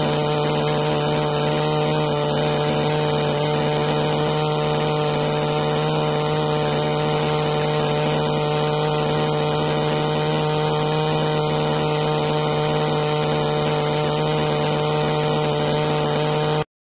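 Aircraft engine running steadily, a constant droning hum with several fixed tones, heard from on board. It cuts off suddenly near the end.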